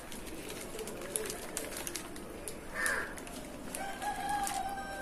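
Plastic packaging crinkling as it is handled and pulled open. Near the end, a bird gives one long held call in the background.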